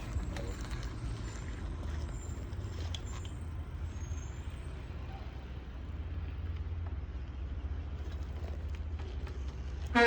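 Steady low rumble of a bicycle test ride, with a few faint clicks.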